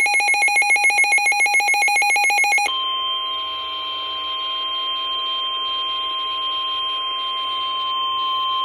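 Emergency alert tones: a rapidly pulsing, warbling alarm tone, then about three seconds in a switch to one steady high-pitched tone, the 1050 Hz alert tone that comes before National Weather Service warnings.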